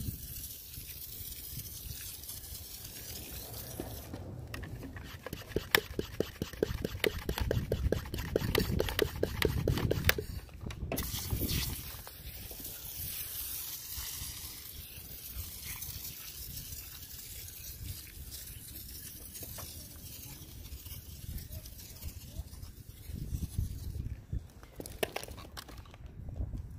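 Pre-pressurised hand-pump foam sprayer (IK Foam Sprayer 1.5) hissing as it sprays thick foam onto a car wheel and tire, with a stretch of rapid clicks and spitting a few seconds in.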